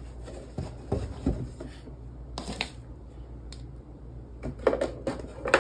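Scattered light knocks and clicks of plastic cabinet panels and a hand screwdriver being handled during flat-pack assembly, a few spread through the first half and a quick cluster near the end.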